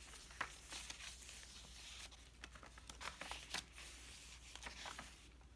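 Faint rustling of paper pages being turned in a handmade junk journal, with a few soft clicks and brushes of hands on paper.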